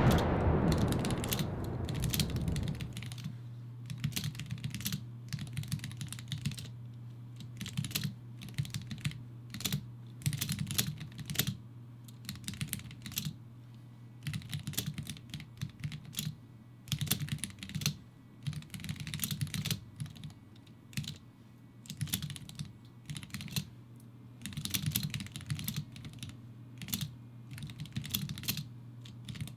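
Typing on a Womier K87 mechanical keyboard with lubed Gateron Yellow linear switches: irregular runs of keystrokes with short pauses between them. A low rumble fades out over the first two seconds or so.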